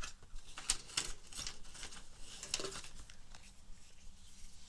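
Close-miked ASMR tapping: light, quick taps on an object in irregular flurries, with a brief rustle about two and a half seconds in.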